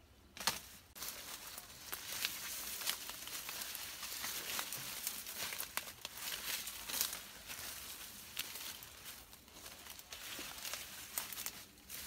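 Dry sugarcane leaves and leaf litter crackling and rustling as a person moves and works among the stalks, with scattered sharp snaps.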